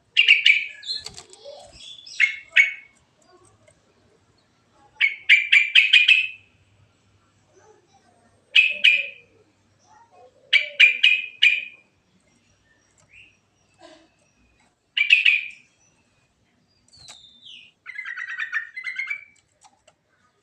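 Yellow-vented bulbul (cucak trucuk) singing: short, quick bubbling phrases of rapid notes, repeated about seven times with brief pauses between them.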